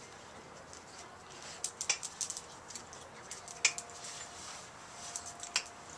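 Scattered sharp clicks and light ticks: a quick cluster about two seconds in, then single louder clicks a little past the middle and near the end. A faint steady high tone is heard twice in the second half.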